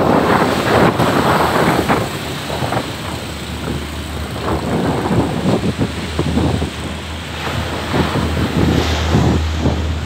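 Wind buffeting the microphone over the rush of surf breaking on the shore, in gusts that are strongest in the first couple of seconds.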